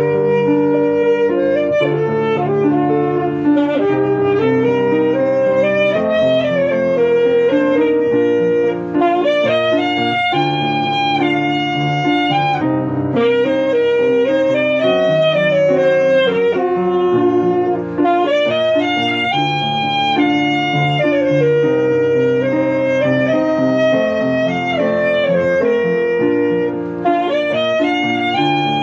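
Alto saxophone playing a melody of long held notes over grand piano accompaniment.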